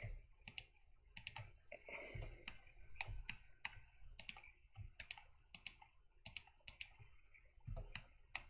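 Computer keyboard keys and mouse buttons clicking, faint and irregular, about two or three clicks a second.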